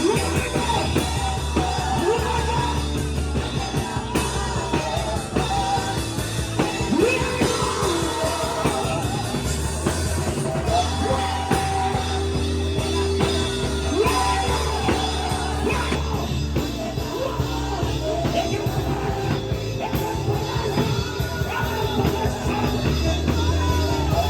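Rock-style music with drum kit and a sung or yelled vocal line, running steadily.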